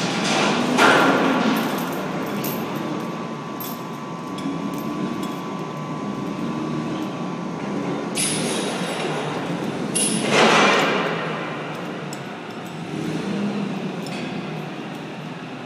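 Overhead crane and shop machinery running steadily in a steel fabrication shop, with two loud clangs of steel, about a second in and again about ten seconds in, and a thin steady whine between them.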